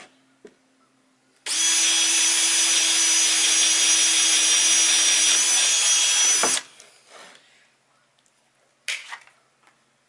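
Cordless drill boring a pilot hole through plywood. It runs steadily at full speed for about five seconds with a high motor whine, then stops. A couple of brief knocks follow near the end.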